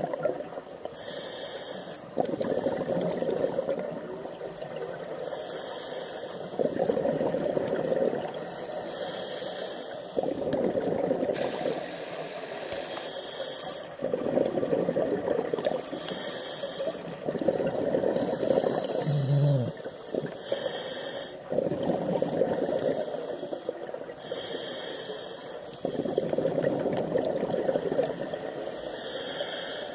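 A scuba diver breathing through a regulator underwater: a short hiss on each inhale, then a longer burble of exhaled bubbles, repeating about every four seconds, some eight breaths in all.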